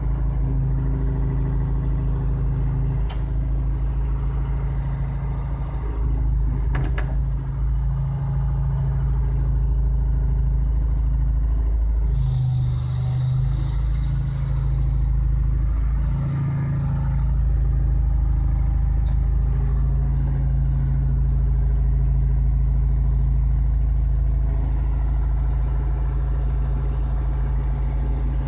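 Engine of a Gradall G1000 truck-mounted excavator running steadily while its boom is worked, heard from inside the cab. About twelve seconds in there is a hiss lasting some three seconds.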